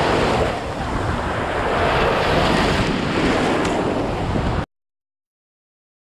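Ocean surf breaking and churning around a camera at the waterline: a loud, rushing wash of water that cuts off abruptly about four and a half seconds in.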